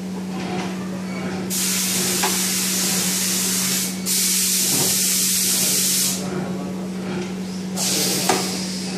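Three bursts of loud pressurised spray hissing: the first starts about one and a half seconds in, a second follows straight after, each about two seconds long, and a shorter one comes near the end. A steady low machine hum runs underneath.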